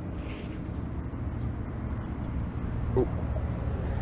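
An engine running steadily in a low, even hum, with a brief pitched squeak-like sound about three seconds in.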